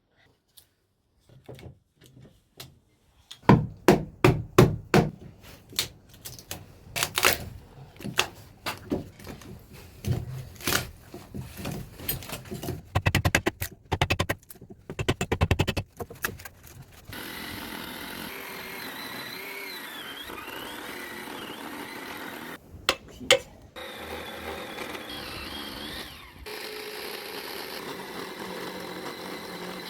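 Irregular knocks and thuds of tools working on wood, with a quick run of blows near the middle. A little past halfway a power tool starts and runs steadily, its pitch wavering under load, cutting out briefly twice.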